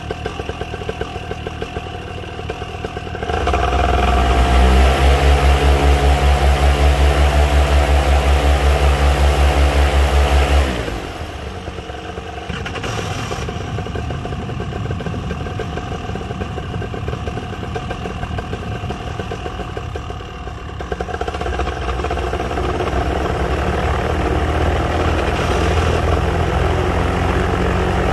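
Paramotor engine and propeller run up on a stand: running at a low throttle, then revved hard about three seconds in with a fast pulsing beat, dropped back to idle after about seven seconds, and throttled up partway again near the end.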